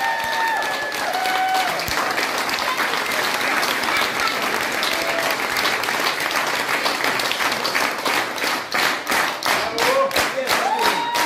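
Audience applauding. About eight seconds in, the applause falls into rhythmic clapping in unison, with a few voices calling out over it near the end.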